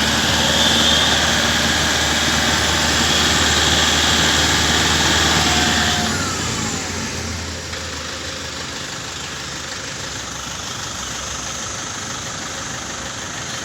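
Toyota Innova's engine running in gear with the raised rear wheels spinning, a check for rear wheel bearing noise. The pitch rises near the start, then falls away after about six seconds as the wheels slow to a steadier, quieter running.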